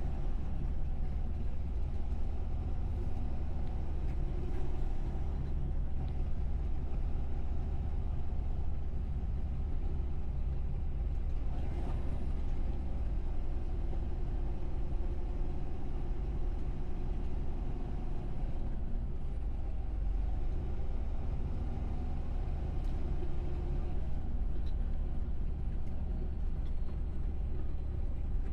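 Heavy truck running, a steady low rumble with no change in level.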